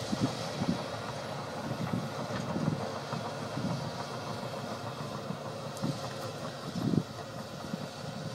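CASE crawler excavator's diesel engine running and its steel tracks clattering as it travels, heard from a long way off. Uneven low rumbles swell and fade throughout, the strongest about seven seconds in.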